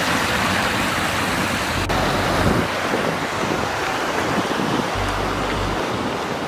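A fast mountain stream rushing over rocks, a steady noise of running water, with wind buffeting the microphone in low rumbles about two seconds in and again near the end.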